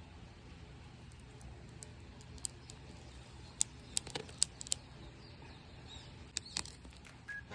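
Scattered sharp clicks and snaps, seven or eight of them at uneven intervals, over a faint low steady background noise.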